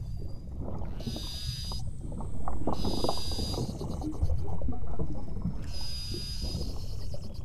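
Beluga whales calling underwater: a busy chatter of rapid clicks and squeaks, with three held high whistles of under a second each, over a steady low rumble of water and boat noise.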